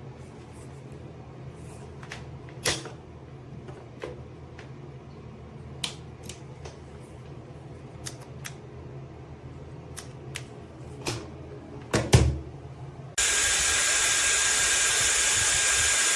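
A few sharp clicks and knocks of a hair dryer being handled. About thirteen seconds in, the dryer switches on suddenly: a steady rush of air with a thin high whine.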